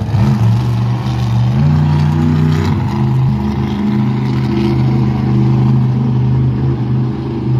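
Monster truck engine running loud, revving up about one and a half seconds in and easing back a second later, then holding a steady drone as the truck drives across the dirt arena.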